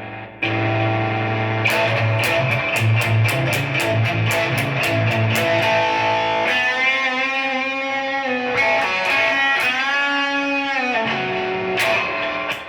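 Raven Telecaster-style electric guitar played through an amplifier: a quick run of picked notes, then held notes bent up and down in pitch, ending with a strummed chord near the end.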